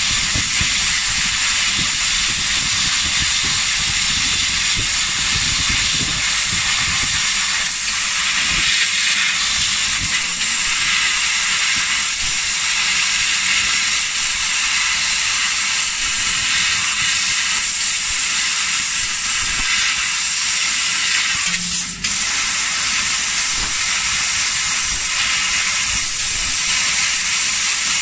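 Steady hiss of assist gas jetting from a RayTools fiber laser cutting head's nozzle as it cuts thin metal sheet, dropping out for a moment about three-quarters of the way through.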